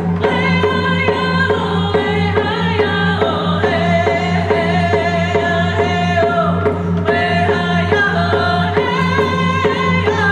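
Two women singing a Native grand entry song together, with a rawhide hand drum struck in a steady, even beat under the voices.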